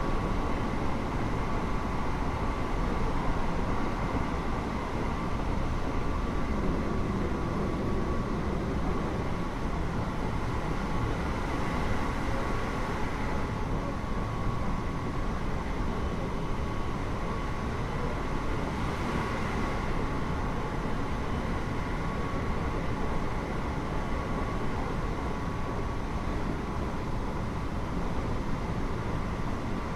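Keio 8000 series electric train running at a steady speed, heard inside the car above the GTO-VVVF main controller: a continuous rumble of wheels on rail with a couple of steady high whining tones.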